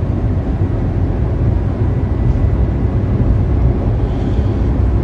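Steady low rumble of tyres and engine heard inside the cabin of a car driving along an asphalt highway.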